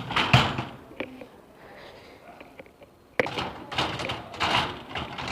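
Bosch dishwasher being closed: a thunk about half a second in, then a sharp knock about three seconds in followed by a couple of seconds of scraping handling noise.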